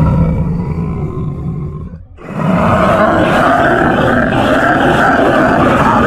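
Music fades out over the first two seconds, then a loud dragon roar sound effect starts and continues, its pitch wavering.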